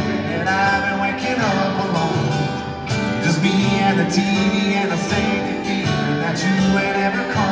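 Country band playing live: strummed acoustic guitar and electric guitar under a male lead vocal.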